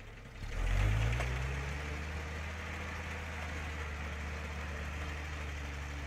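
Engine of an old six-wheel-drive army truck loaded with logs, revving up sharply about half a second in, then running steadily under load as the truck creeps forward through deep snow.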